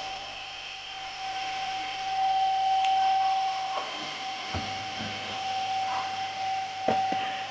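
Car vacuum cleaner running steadily with a constant high whine over its airflow hiss, with a few light knocks in the second half.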